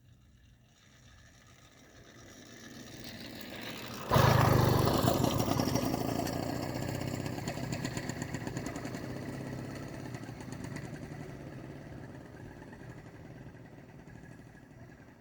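Small two-stroke engine of an 80cc Zeda motorized bicycle kit. It grows louder for a few seconds, jumps sharply louder about four seconds in as it catches or comes close, then fades steadily.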